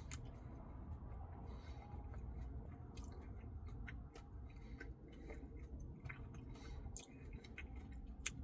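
Faint, wet chewing and scattered mouth clicks from someone eating a mouthful of Blizzard ice cream with cookie dough and Reese's Pieces.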